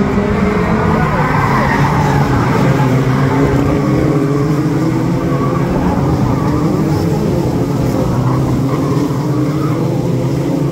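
A pack of BriSCA F2 stock car engines racing past at close range. Several engines sound at once, their pitch rising and falling as the cars go round the bend.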